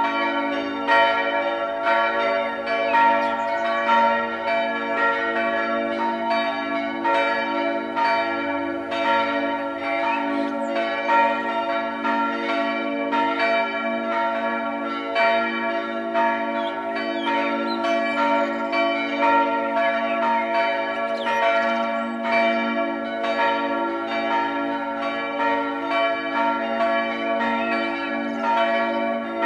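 Swinging church bells of a four-bell parish peal ringing together in a continuous full peal, their strikes falling irregularly and overlapping over a sustained ringing hum.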